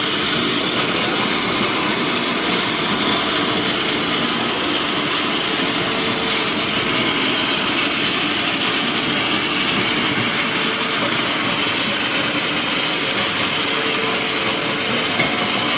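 Olivinox 300 mini continuous olive oil extraction machine running steadily: an even, hissing mechanical noise with faint steady tones in it.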